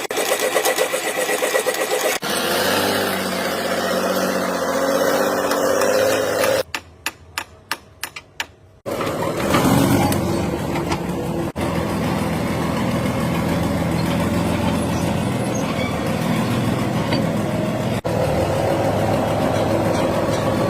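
Heavy-equipment engine running, heard in several short clips cut together, with a brief stretch of sharp clicks about seven to eight seconds in.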